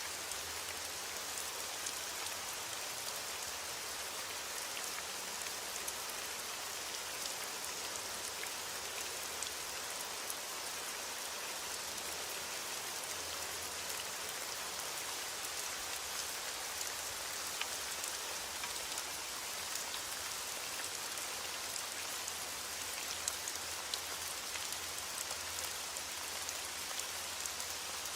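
Steady rain falling, an even hiss with many small individual drop ticks scattered through it; no thunder is heard.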